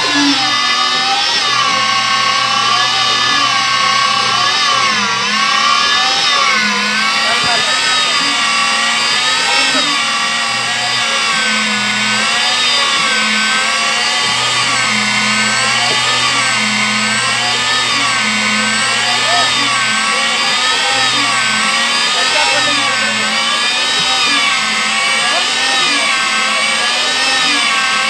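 HDPE pipe butt-fusion machine running: a steady motor whine whose pitch wavers up and down about once a second, with a low hum that cuts in and out.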